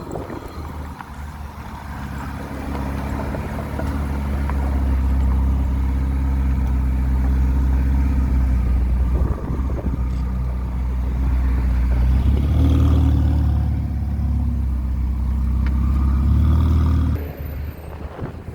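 Ferrari 488 Pista Piloti's twin-turbo V8 running at a steady, even pitch, growing louder over the first few seconds and swelling briefly about two-thirds through, then dropping away suddenly near the end.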